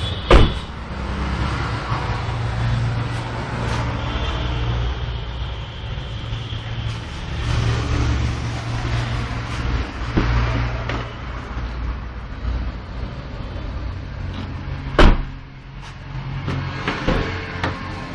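Suzuki Swift VXi engine running at idle with a steady low hum. Two loud thumps sound, one just after the start and one about 15 seconds in, with a few lighter knocks between.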